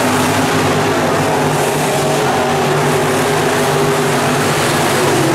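A field of dirt late model race cars racing on a dirt oval, their engines running loud and steady, with several engines overlapping as the pack passes.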